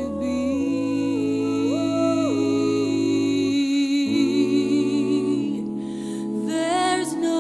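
Slow background music: long held low notes under a melody that steps up and down, with a wavering, vibrato-like line near the end.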